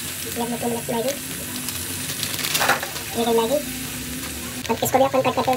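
Onion and tomato masala sizzling as it fries in a steel pan, stirred now and then, with a brief knock about halfway through. A voice is heard now and then in the background.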